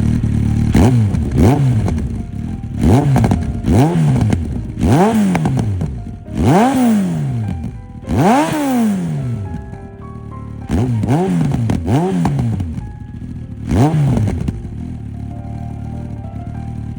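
Yamaha XJR1300's air-cooled inline-four, fuel-injected, through a Yoshimura header and R's Gear Wyvern silencer, idling and being blipped about a dozen times: each rev climbs sharply and falls straight back. The blips stop about fourteen seconds in, leaving a steady idle.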